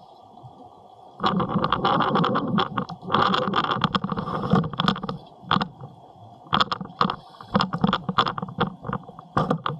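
Irregular knocking, rubbing and rumbling from an Insta360 X3 underwater camera jostling on its rope, heard through its waterproof housing. It starts abruptly about a second in, pauses briefly near the middle, then comes back in a second spell.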